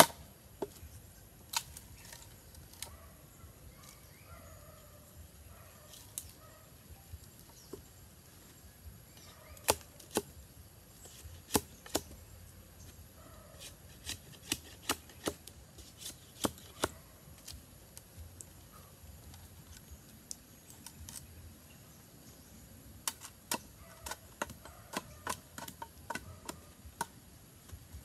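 Machete chopping and splitting a length of fresh bamboo: sharp knocks in irregular clusters with pauses between them.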